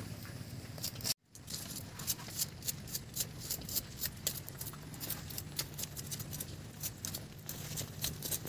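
Irregular sharp crackling and scraping clicks, a few a second, from a wood fire and the charred rats being singed over it and scraped clean of burnt fur with a bamboo strip. The sound cuts out for a moment about a second in.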